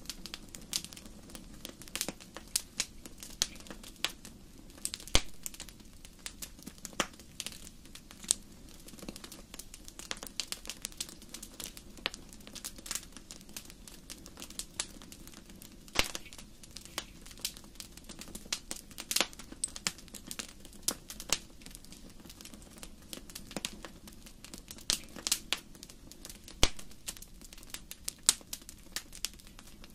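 Wood fire burning in a fireplace, crackling and popping at irregular intervals over a steady low rush of the flames.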